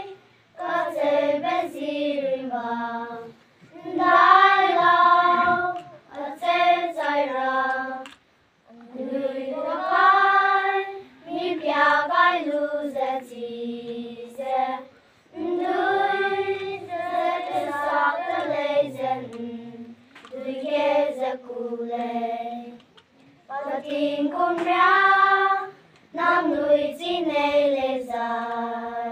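A choir of high voices singing a melody in phrases a few seconds long, with short pauses for breath between them.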